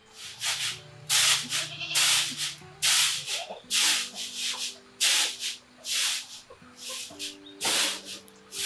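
Dry grains swishing and sliding in a woven bamboo winnowing tray as it is shaken and tossed, in rhythmic swishes about once a second.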